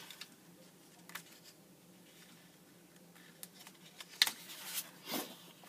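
Sheets of 12x12 designer series paper being handled on a cutting mat: a few light taps and clicks, then paper rustling and sliding twice, about five seconds in, as a sheet is lifted and turned. A faint steady hum runs underneath.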